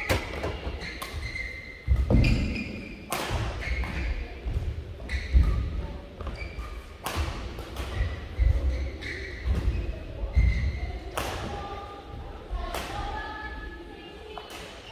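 Badminton rally in a large hall: sharp racket-on-shuttlecock hits every second or two, with heavy thuds of players' footwork on the court floor and an echo after each hit.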